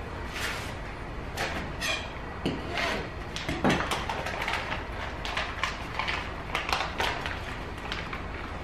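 Clear plastic bag crinkling and rustling in irregular bursts as it is pulled open by hand and the fish inside is worked out of it, over a steady low hum.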